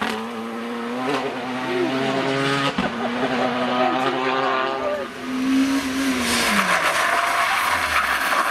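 Rally car engine pulling hard as it drives away, with short breaks at gear changes about a second in and twice more in the first three seconds; its note then falls as it recedes. Near the end, the hiss of tyres skidding as another car slides through the corner.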